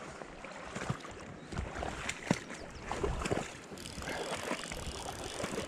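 River water rushing and splashing as a hooked whitefish is played on a fly rod, with scattered clicks and knocks, one sharper than the rest about two seconds in.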